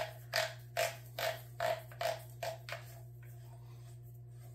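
A quick run of about eight evenly spaced light clicks, a little over two a second, from hands working the front end of an HK33K rifle at the birdcage flash hider, stopping about three seconds in.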